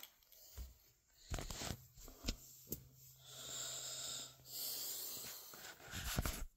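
Knocks and rustles from a phone being handled, the loudest near the end, with a breathy wheezing hiss in the middle that lasts about two seconds with a short break.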